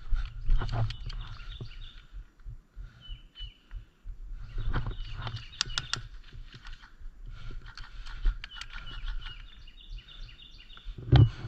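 Birds chirping with repeated short calls, over low rumble and scattered clicks and rustles, with a louder knock near the end.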